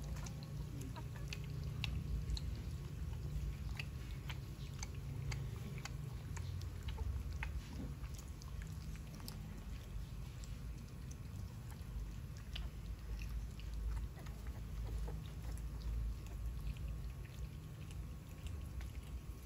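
Mother dog licking a newborn puppy: wet tongue clicks and smacks coming irregularly, over a steady low rumble.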